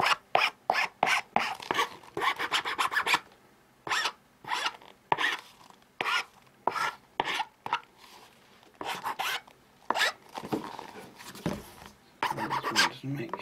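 A hand file rasping against a newly fitted heel tip to smooth its edges: quick strokes for the first three seconds or so, then slower strokes with short pauses between them.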